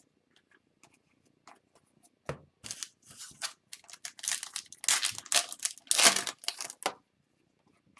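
Hockey trading cards and their foil pack wrapper being handled: a few light clicks, then from about two seconds in a run of crinkling and rustling that is loudest in the last few seconds.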